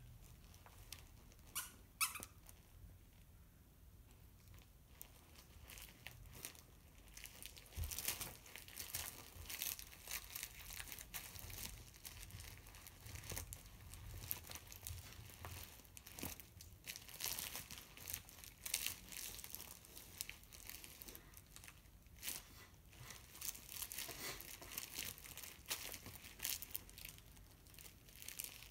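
A puppy gnawing and tugging at a fabric chew toy: an irregular run of small, light chewing and tearing noises, with a sharp click about two seconds in.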